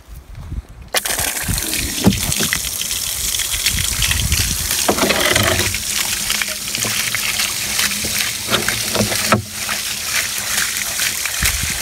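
Garden hose gushing water into a plastic livestock water trough. It starts about a second in and runs steadily as the trough fills.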